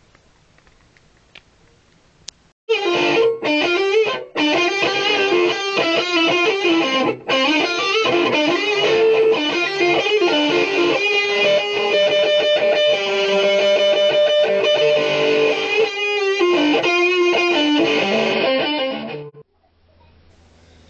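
Electric guitar played in a fast lead run with some longer held notes, starting about two and a half seconds in and cutting off suddenly near the end.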